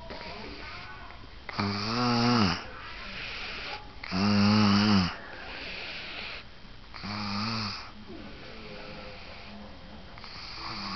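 Snoring: three loud snores, each a wavering buzz, with softer breathy hissing between them and another breath starting near the end.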